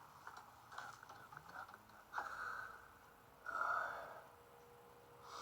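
A man's breathing close to the microphone: a few short noisy breaths, the loudest about two and three and a half seconds in.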